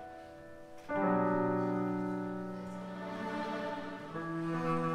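Double bass played with the bow: after a brief lull, a long sustained note begins about a second in and changes to another held note about four seconds in.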